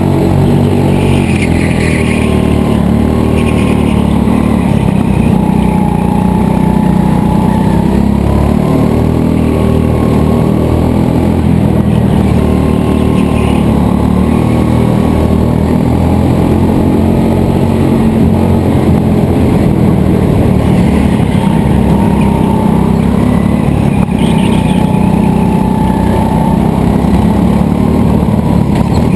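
Racing go-kart's engine heard from onboard, running continuously with its pitch rising and falling as it accelerates and eases through the corners.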